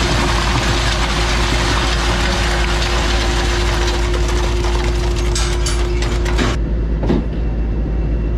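Skid steer engine running a hydraulic concrete pump, with a steady rumble and mechanical clatter. A loud rushing noise with a steady hum over it stops suddenly about six and a half seconds in.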